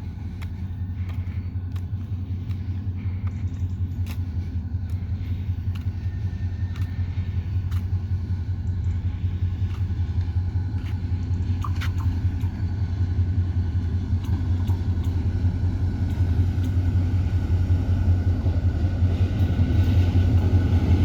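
EMD GT26 diesel-electric locomotive's engine running with a steady low rumble that grows steadily louder as the train approaches, with scattered brief clicks.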